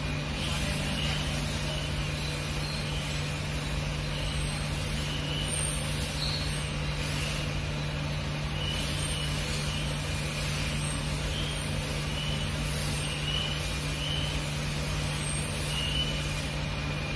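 Steady low hum with an even hiss that never changes, plus faint short high chirps now and then.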